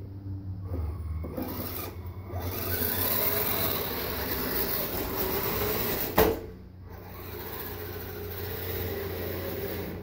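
Kyosho Blizzard RC snowcat driving on its tracks: a rasping mechanical whir from its electric drive and tracks that swells after the first couple of seconds. A single sharp knock about six seconds in, after which the whir dips briefly and then carries on.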